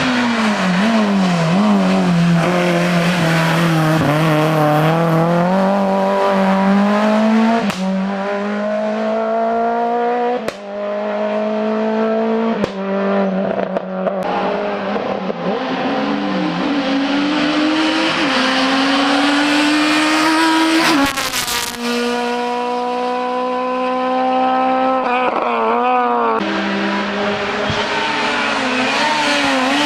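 Hillclimb race car engines at full throttle, the pitch climbing and dropping again and again as the cars shift gears and lift off for corners, with several sharp breaks in the sound.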